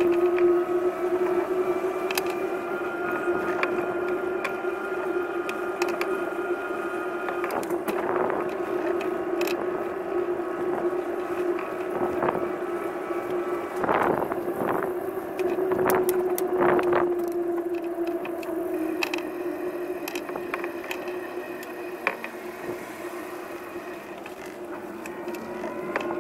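A steady, pitched drone with overtones from a moving vehicle, wavering slightly in pitch. Several sharp knocks come in the middle.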